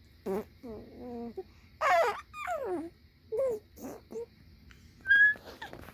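Baby vocalizing: a string of short squeaks and coos that slide up and down in pitch, the loudest about two seconds in, then a brief high, whistle-like squeal about five seconds in.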